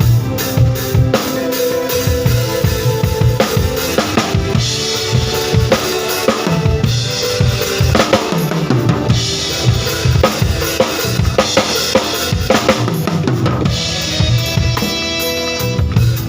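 Drum kit being played, with kick drum, snare and rimshot hits in quick, busy patterns, over pitched backing music.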